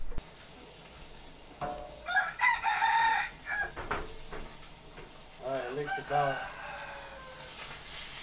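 A rooster crows about two seconds in, and a second, lower call follows a few seconds later. A trout fillet sizzles as it fries in butter in a pan, the sizzle growing louder near the end.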